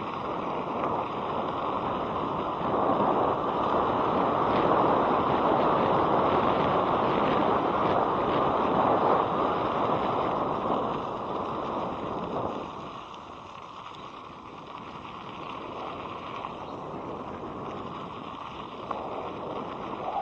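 Wind rushing over the microphone of a helmet-mounted action camera during an electric scooter ride, with road noise under it. It is a steady rushing noise that grows louder over the first few seconds and drops noticeably about twelve seconds in.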